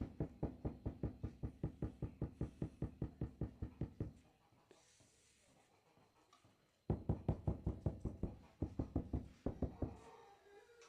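Ceramic floor tiles being knocked on rapidly and evenly, about nine knocks a second, in two runs of several seconds with a pause between.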